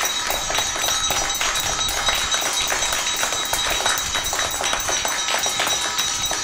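Many hands clapping together in a dense, uneven patter, with a small metal handbell ringing steadily over it and a steel plate being beaten.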